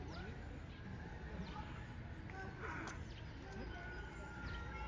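Faint bird chirps, short quick notes scattered through, over a steady low rumble.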